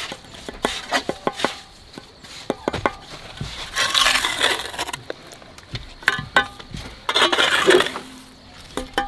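Steel bricklaying trowel clinking and scraping against bricks and wet mortar: a series of sharp clinks and taps, with a longer scraping stroke about four seconds in and another near the end.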